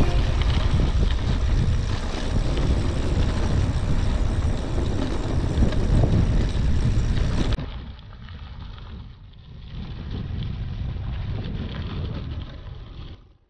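Wind rushing over the microphone of a mountain bike descending a gravel road, over the rumble of its tyres on the dirt. About halfway through it drops abruptly to a quieter, duller rush.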